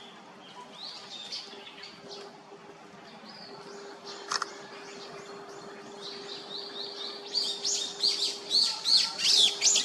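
Great spotted woodpecker nestlings chirping in a rapid series of high calls, the begging of chicks being fed. The calls start faint and grow louder and quicker over the last few seconds.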